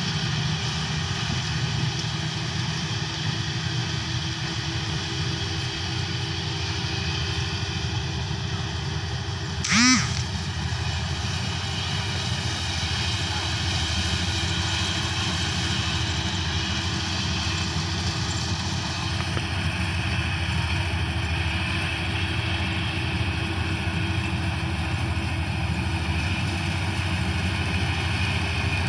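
Kubota DC-35 mini combine harvester's diesel engine and threshing machinery running steadily under load while it harvests rice. About ten seconds in, a short, loud pitched call slides in pitch over the drone.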